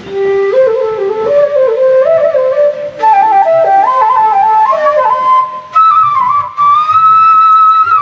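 Bamboo transverse flute (bansuri) playing a slow Pahadi folk melody, one note at a time, climbing in steps from low notes to a long held high note in the last couple of seconds.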